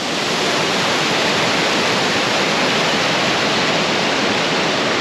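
Small waterfall pouring into a pool, heard up close as a loud, steady rush of falling water.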